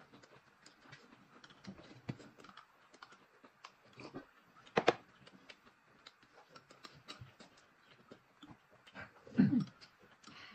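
Close-miked eating sounds of steamed buns being chewed, mixed with many light clicks from a spoon stirring mustard paste in a glass cup. A sharper click comes about five seconds in, and a brief low voice sound falls in pitch near the end.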